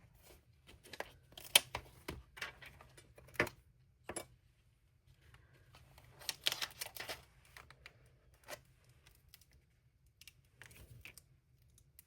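Light, irregular clicks, taps and paper rustles of hands working with cardstock, a stamp and an ink pad, in scattered clusters.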